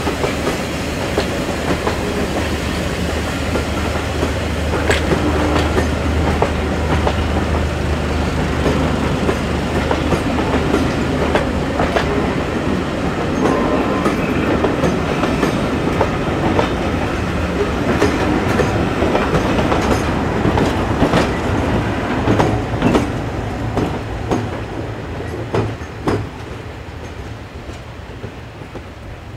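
Rake of passenger coaches behind West Country class steam locomotive 34092 rolling past close by, wheels clicking over rail joints. The sound fades as the train draws away near the end.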